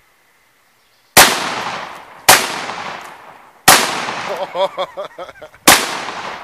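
Benelli M4 semi-automatic 12-gauge shotgun firing four 1-ounce slugs, one to two seconds apart. Each shot is a sharp blast with a ringing tail that dies away.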